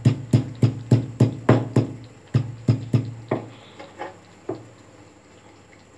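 A cat lapping milk from a bowl in quick, regular laps, about three a second, which grow fainter and slower and stop about four and a half seconds in.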